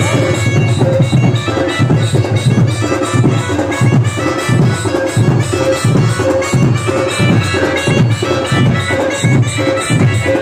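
Loud dance music with a steady drum beat and a repeating melody, played over a vehicle-mounted DJ loudspeaker system.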